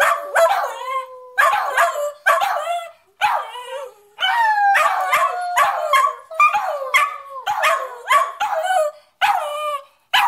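A dog howling in a string of more than a dozen short, wavering calls, many sliding down in pitch, with brief gaps between them.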